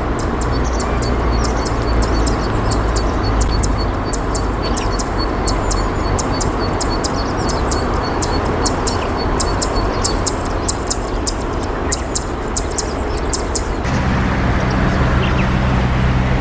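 Steady rushing of flowing river water, with rapid faint high ticking over it. About fourteen seconds in, the sound changes abruptly to a steadier low hum.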